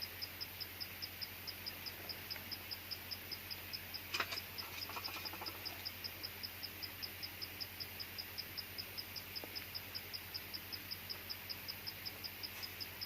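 A cricket chirping steadily, short high chirps evenly spaced at several a second. About four seconds in there is one sharp crack, followed briefly by faint rattling.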